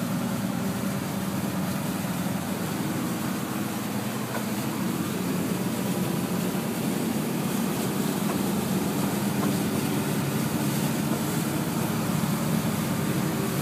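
A truck driving through floodwater, heard from inside the cab: the engine running steadily under the constant wash of water against the vehicle.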